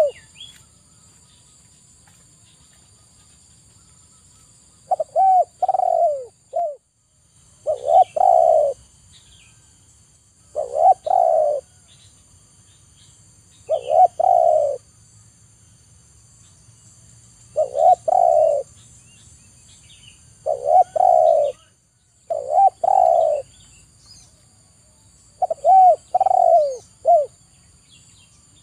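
Spotted dove cooing: a rhythmic coo phrase repeated every two to three seconds, some phrases broken into three quick notes, after about five seconds without calls. A faint steady high-pitched hum runs underneath.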